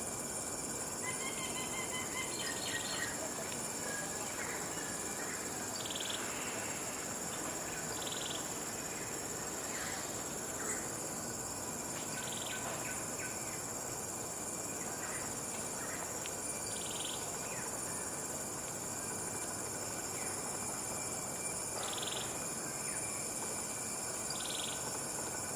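Tropical forest ambience: a steady high-pitched insect drone, with a short call repeating every few seconds and faint scattered bird chirps in the first few seconds.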